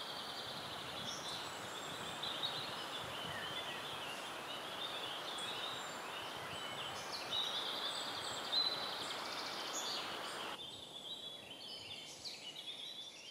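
Woodland birdsong, several small birds chirping and trilling over a steady hiss of background noise. The hiss cuts out abruptly about ten seconds in, and the birdsong carries on.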